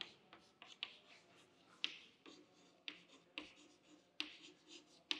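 Chalk writing on a blackboard: about ten faint, sharp taps of the chalk stick against the board, with light scratching between them as letters are formed.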